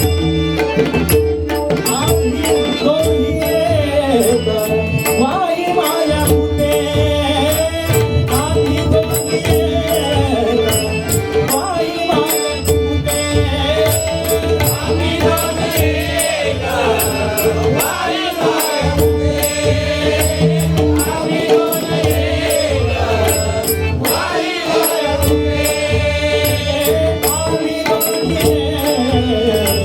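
Live Marathi abhang bhajan music: a melody line that bends up and down over a steady drone, with a drum keeping a steady beat.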